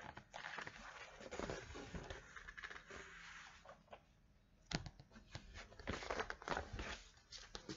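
Faint rustling of a large picture book's paper pages being turned, with a few short clicks and knocks as the book is handled.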